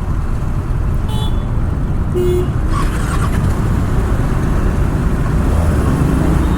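Kawasaki ZX-6R's inline-four engine running amid road traffic, with brief horn toots from other vehicles about one and two seconds in.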